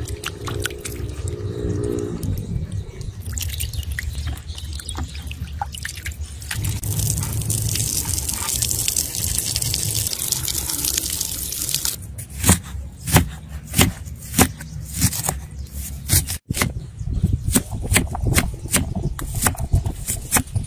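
Water splashing and dripping as a fish is washed by hand in a basin, then a knife chopping onion on a wooden cutting board in sharp knocks about two a second.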